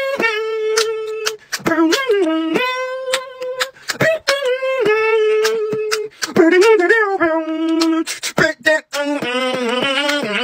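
Wordless vocal riff done by mouth, beatbox-style: a voice holds steady notes and slides through quick bending phrases between them, with sharp percussive clicks cutting in rhythmically. Near the end it drops to a lower held note.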